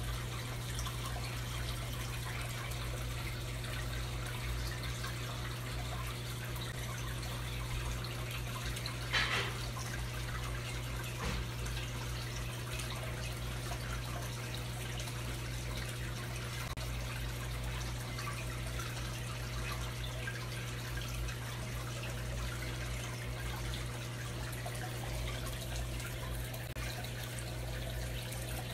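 Aquarium filter running: a steady trickle of water into the tank over a constant low hum from its pump. There is one brief louder noise about nine seconds in.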